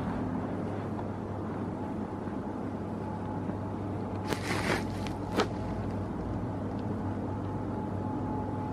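Steady low hum of a large station hall's background noise, with a brief clatter about four seconds in and a single sharp click a second later.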